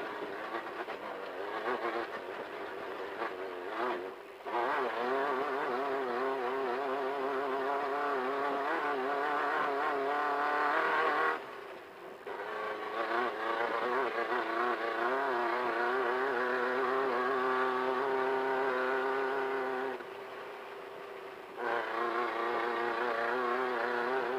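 Desert race car's engine running hard, heard from inside the car, its pitch wavering up and down with the throttle. It eases off briefly about four seconds in, again around eleven seconds in, and for a second or two around twenty seconds in, picking back up each time.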